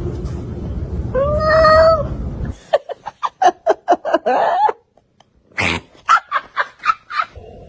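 A domestic cat meowing: one drawn-out meow over a low rumble, then two quick runs of short, clipped calls separated by a brief pause.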